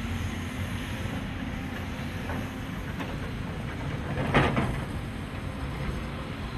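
Heavy machinery running with a steady rumble, with a short louder swell of noise about four seconds in.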